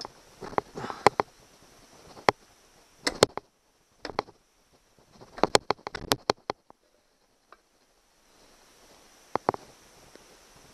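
Irregular sharp knocks and clinks of metal outboard housing parts being worked into alignment as the midsection and lower unit are fitted together. They come in short clusters with quiet gaps between.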